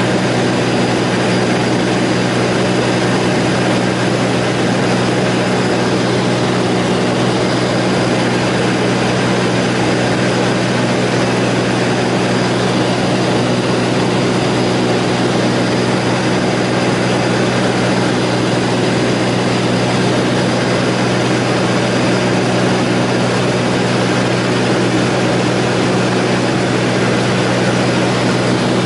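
Aircraft engines droning steadily in flight: an even, unchanging low hum with a hiss over it.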